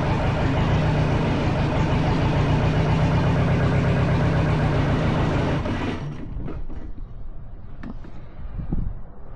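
Kubota V2203 four-cylinder diesel running rough with a misfire, which the owner puts down to an air pocket in one injector line drawn in past a loose fitting nut. It stops about six seconds in, followed by a few light knocks.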